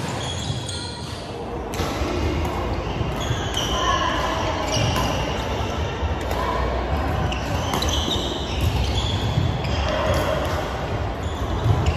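Badminton rackets striking shuttlecocks, over and over, with quick footwork thudding on a wooden court in a large gym hall, and voices in the background.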